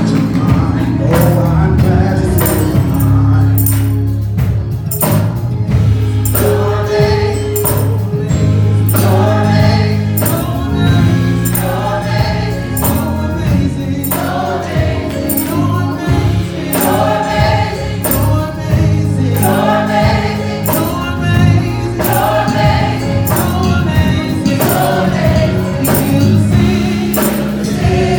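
Gospel choir singing with band accompaniment: massed voices over a sustained bass and a steady beat of high percussion strikes.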